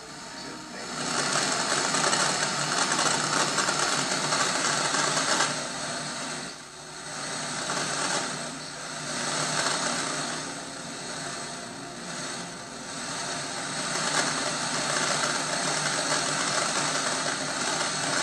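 Static hiss from an analog TV's speaker tuned to a UHF channel with too weak a signal, swelling and dipping a few times as the signal fades in and out.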